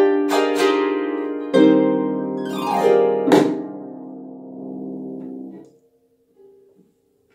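Harp playing the closing bars of a piece: plucked chords, a quick downward glissando, and a final chord about three seconds in that rings on before the harpist's flat palms damp the strings and cut it off, near the end.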